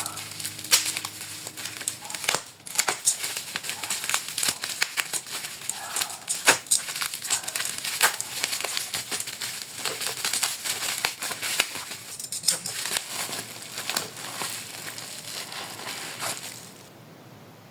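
Plastic packaging crinkling and crackling as it is handled and opened, in dense, irregular bursts that stop about a second before the end.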